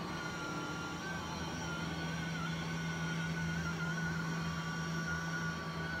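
LG Hom-Bot Square robot vacuum running on carpet: a steady motor and suction-fan hum with a high whine that wavers slightly in pitch as it drives across the pile.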